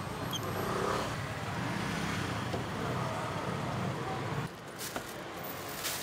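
Automatic cup-sealing machine running with a steady low mechanical hum while it heat-seals plastic film onto a cup of mung bean smoothie. The hum stops abruptly about four and a half seconds in.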